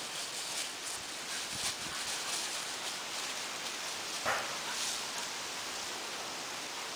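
Labrador dog pushing through tall dry grass: rustling with scattered light crackles, and one louder, sharp sound about four seconds in.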